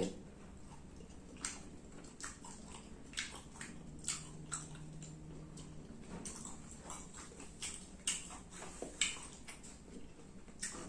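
A person chewing a mouthful of fried shark meat, with soft mouth clicks and smacks coming irregularly about twice a second.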